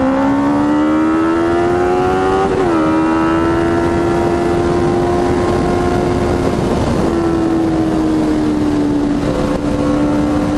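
Honda CB650F's inline-four engine through a Jeskap GP2 R full exhaust, pulling under way. Its note rises for a couple of seconds, drops sharply at a gear change near three seconds in, then holds and eases down slowly near the end.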